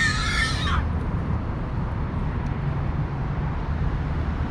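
A toddler's brief high-pitched squeal in the first second, then a steady low rumble of downtown city background noise.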